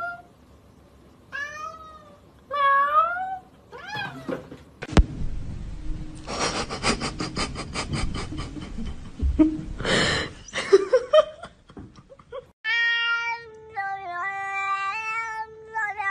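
Domestic cats meowing: three short meows that rise and fall in pitch in the first few seconds, then, after a few seconds of noisy rapid clicking, a long drawn-out yowl from another cat that steps up and down in pitch near the end.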